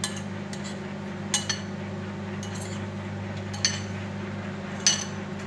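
Metal spoon stirring instant coffee and sugar in a ceramic bowl, clinking against the bowl's side in about seven irregular clinks, under a steady low hum.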